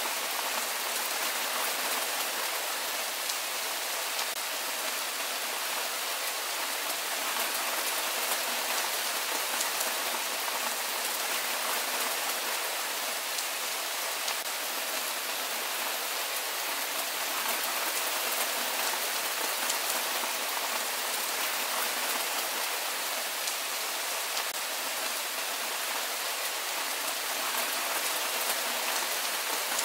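Steady rain falling, an even hiss of many small drops with no change in strength.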